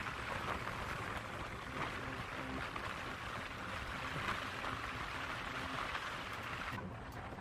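Steady rushing road and wind noise from a vehicle driving along a paved road.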